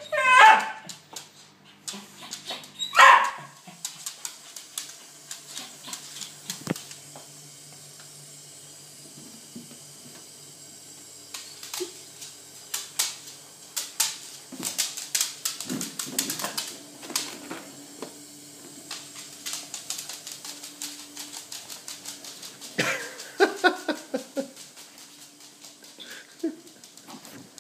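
A dog barking: two loud barks in the first few seconds and another short run of barks late on. In between come many quick clicks and taps as it scrambles after balloons on a wooden floor.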